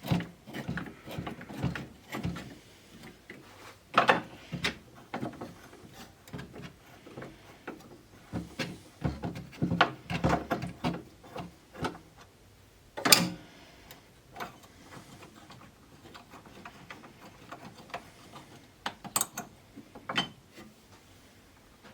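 Irregular clicks, knocks and light clatter of hands and tools working on a pinball playfield, in uneven clusters, with one sharp knock about halfway through.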